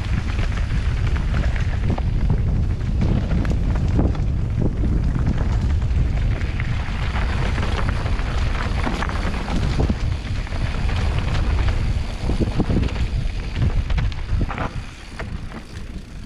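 Wind buffeting a camera microphone while a mountain bike descends a dirt trail at speed, with the tyres and frame rattling over rough ground in scattered knocks. The noise eases over the last couple of seconds.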